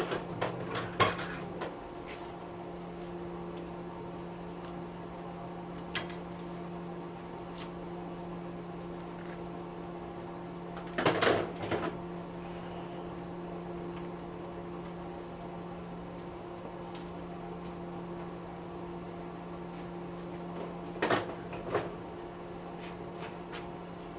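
Metal clinks and knocks of tools and small motor parts being handled during a hand teardown of an electric weed trimmer motor. They come in short clusters in the first second or two, about halfway through and near the end, over a steady low hum.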